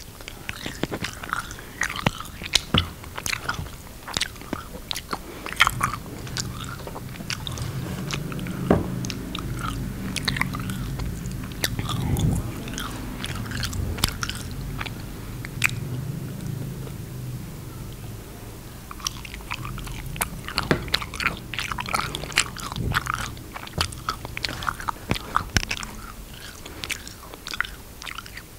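Close-miked chewing and sticky, wet mouth sounds from eating a soft homemade edible slime, full of sharp smacking clicks. A denser stretch of low chewing runs through the middle.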